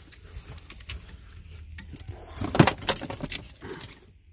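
Rattling clicks and knocks of a car battery being handled and lifted out of its compartment, with a louder clatter and a dull thud about midway.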